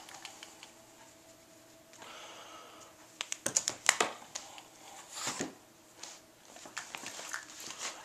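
A cat's claws and paws clicking and scrabbling on a hardwood floor as she chases and pounces on a toy. The taps come in scattered, uneven bunches, thickest around the middle.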